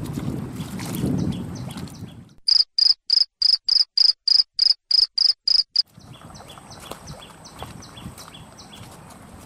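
Cricket chirping as a sound effect: about a dozen short high chirps at a steady three or so a second, with dead silence between them. Before the chirps there is wind and water noise; after them, fainter insect chirping over a low outdoor background.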